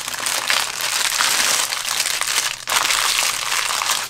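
Clear plastic film and packaging crinkling as hands flatten and handle a plastic-covered diamond painting canvas. The crinkling is continuous, with a brief break just before three seconds in.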